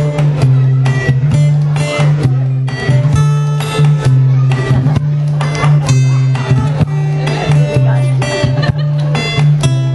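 One acoustic guitar played by several people at once: a plucked riff and strummed chords over a held low note, with sharp percussive knocks keeping a steady beat, about two to three a second.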